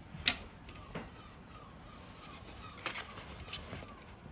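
Light clicks and knocks of a plastic printhead cleaning-cassette frame and its new cloth roll being handled and fitted together, the sharpest about a quarter of a second in. A faint short chirp repeats about three times a second underneath.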